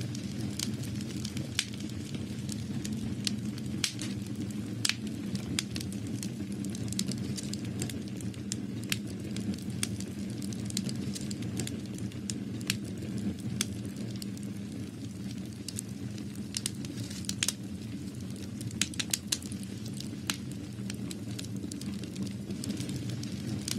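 Irregular sharp crackles and clicks, several a second, over a steady low hum.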